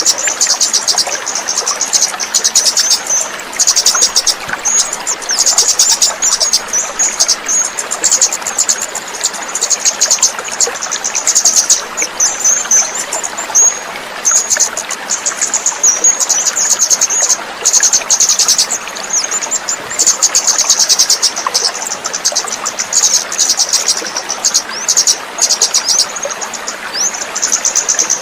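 Kemade bird singing a fast, high-pitched chattering trill in phrases of a second or more with short breaks between them, over a steady hiss like running water. This is a birdsong therapy recording meant to draw a stressed or newly caught kemade into singing.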